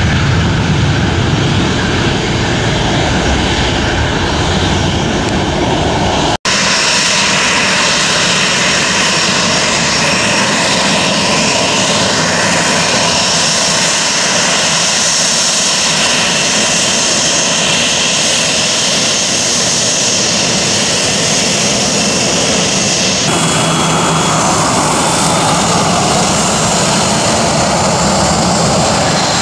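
Boeing 737-800 taxiing with its CFM56-7B turbofan engines at low power: a steady loud rush with a high whine over it. There is a brief dropout about six seconds in, and the sound changes abruptly about 23 seconds in.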